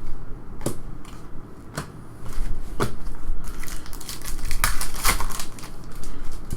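Trading cards being handled: a few sharp flicks about a second apart, then a denser stretch of crinkling and crackling through the middle.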